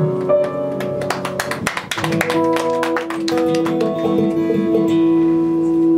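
Acoustic guitar strummed, with piano chords held underneath: the instrumental introduction to a song. A quick run of strums about a second in gives way to held notes.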